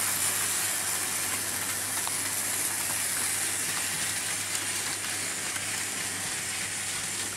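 Several AC-powered Märklin H0 model trains running on metal M-track: a steady whirring rumble of wheels and motors with a low steady hum and a few faint clicks.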